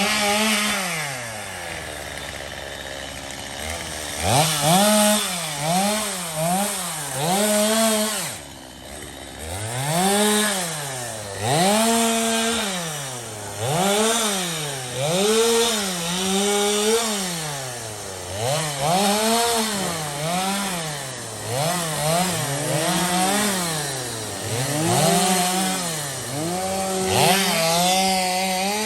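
Two-stroke chainsaw cutting wood, its throttle opened and released over and over so the engine note rises, holds and falls back every second or two. It drops briefly to idle about two seconds in.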